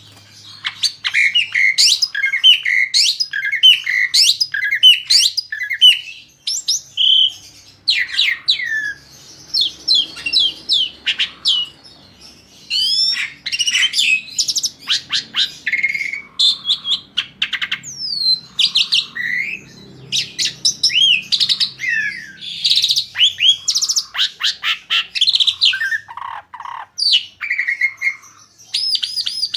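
Asian pied starling (jalak suren) singing a long, varied song of quick whistles, chirps and harsher notes, almost without pause.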